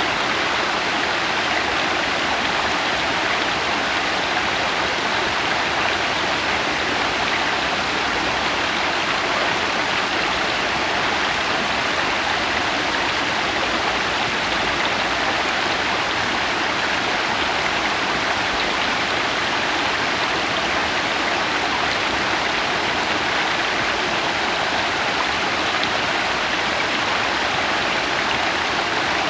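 Waterfall splashing onto rocks, a steady, unbroken rushing hiss.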